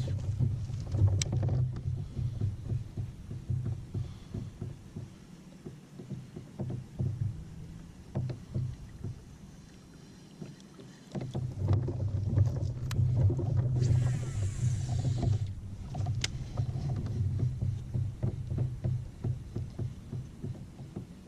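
Baitcasting reel: the spool whirs at high speed as line pays out on a cast, a fast whine lasting about a second and a half, a little past the middle. Light clicks of the reel come and go, over a low rumble.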